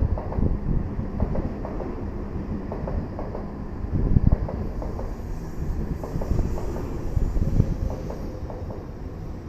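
Shinkansen train running: a steady low rumble with many irregular clicks and knocks from the wheels and car body.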